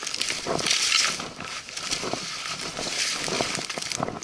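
Leaves and brush swishing against the hiker and camera, with twigs crackling and snapping underfoot, as someone pushes on foot through dense forest undergrowth of ferns and saplings.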